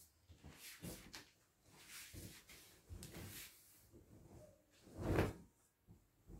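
Cotton bedsheet rustling as it is handled and shaken out over a bed, a series of soft whooshes with one louder flap of the sheet about five seconds in.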